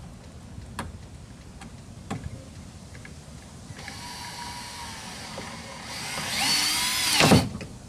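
Power drill driving a screw into a boat deck to fasten a plastic mounting block, after a few light taps. The motor whine starts about halfway through, speeds up and grows louder near the end, then stops suddenly.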